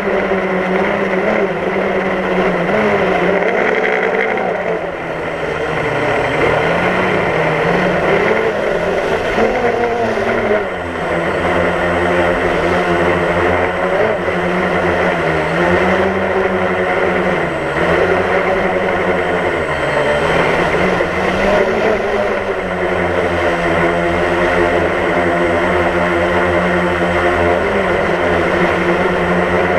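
DJI Phantom quadcopter's four motors and propellers buzzing close to the on-board camera, the pitch dipping and rising repeatedly as the motors adjust, steadier near the end.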